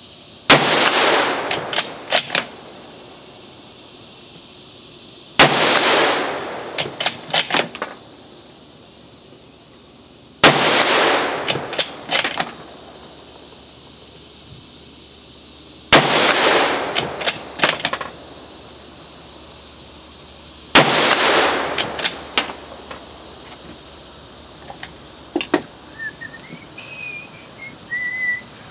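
Ruger GSR556 Gunsite Scout bolt-action rifle in 5.56x45mm fired five times, about five seconds apart. Each shot has a rolling echo, followed by a few sharp clicks as the bolt is worked for the next round.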